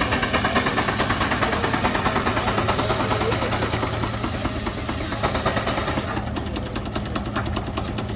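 Antique engine running with a rapid, even train of sharp exhaust pops over a steady low hum; the pops lose some of their crispness about six seconds in.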